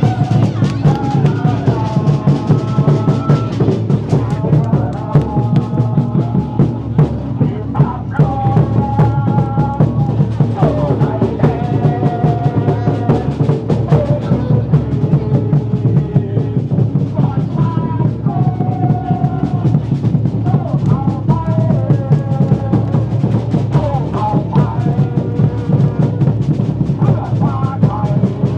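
A football supporters' section singing a club chant together over pounding bass drums, with a steady, unbroken beat.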